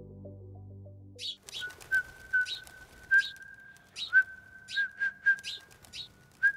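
Background music ends about a second in, then a man whistles: a held high note broken by quick chirping trills, about two or three a second.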